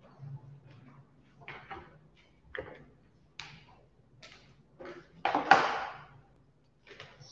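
Scattered light knocks and clicks of things being handled and moved, with one louder, longer noise about five seconds in, over a faint low hum.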